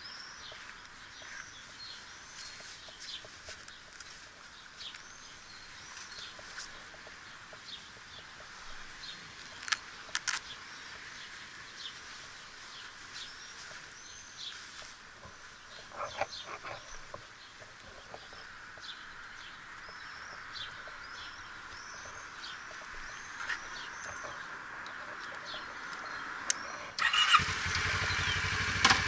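Birds chirping over and over, with a few sharp clicks about ten and sixteen seconds in. Near the end a motorcycle engine starts and settles into a steady idle.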